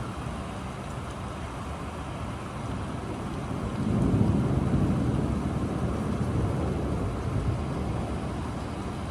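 Steady rain with a low rumble of thunder that swells about four seconds in and slowly fades away.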